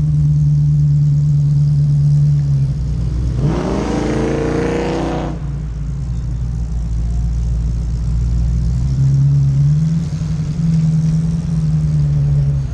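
Car engine idling with a steady low note, revved once about three and a half seconds in: a quick rise in pitch lasting under two seconds, then back to idle. The engine speed lifts slightly again about nine seconds in.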